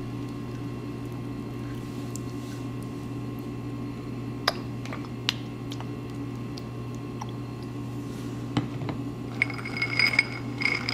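Low steady hum with a few faint clicks; about nine and a half seconds in, a run of light clinks of glass with short ringing tones.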